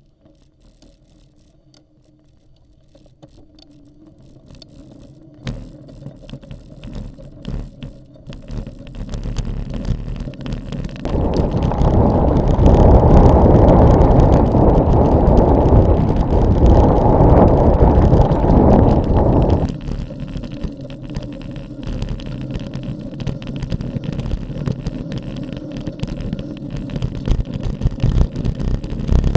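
Electric mountain bike riding over a rough dirt and gravel track: the bike rattles over the bumps and the tyres and wind make a rushing noise that builds after a quiet start and is loudest around the middle.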